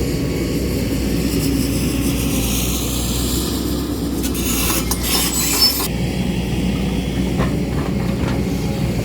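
Excavator diesel engine running steadily under load while it works rocky ground. About halfway through there is a harsh, high scraping burst lasting a second or two, then a few light clicks.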